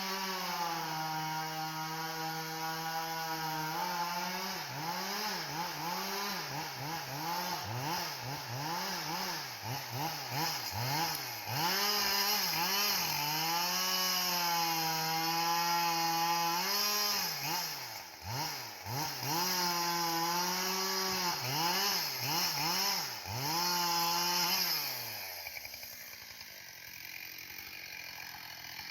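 Two-stroke chainsaw running at high revs, cutting wood. Between the long steady stretches the throttle is let off and opened again and again, so the pitch dips and rises. About 25 s in, the engine drops back to idle and gets quieter.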